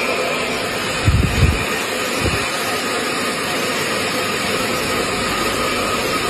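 Steady mechanical rushing noise with faint steady whining tones, and a few low thumps between about one and two and a half seconds in.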